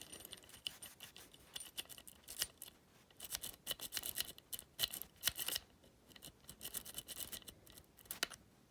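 Cross-lock jiggler being raked and jiggled in the keyway of a cross lock: quick, irregular metallic clicking and scraping that comes in clusters.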